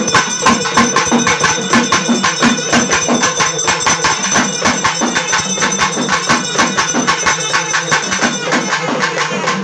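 Fast, driving traditional Tamil folk drumming with jingling, tambourine-like strokes over a steady droning tone. This is the kind of music that accompanies a village deity-invocation (kudi azhaippu) rite.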